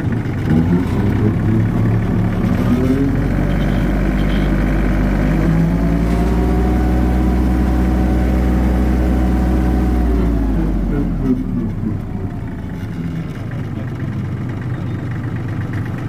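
Massey Ferguson 1532 compact tractor's diesel engine throttled up from idle to a steady high speed with the bush hog rotary cutter engaged, held for several seconds, then throttled back down to idle about two-thirds of the way through.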